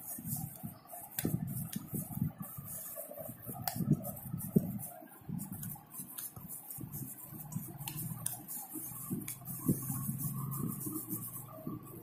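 A hand scraping and pressing soft kneaded chhena (fresh cheese curd) together in a metal plate: irregular soft rubbing and pressing sounds, with a few sharp clicks against the plate.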